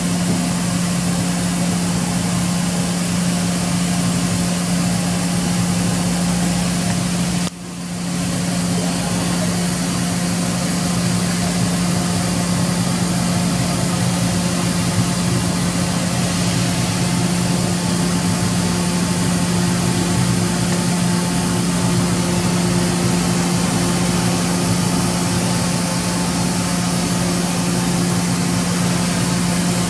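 Makino V55 5-axis vertical machining center running, a steady mechanical hum over a broad hiss. About seven and a half seconds in, the sound drops out briefly and swells back.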